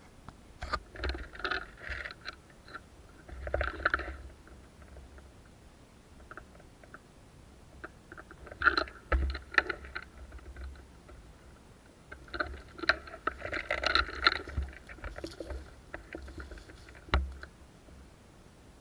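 Rustling and scraping from a player moving through forest brush, in three spells with dull thumps, and a single sharp click near the end.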